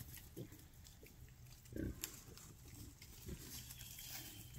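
Berkshire pigs grunting softly: three short, low grunts about a second and a half apart, the middle one the loudest.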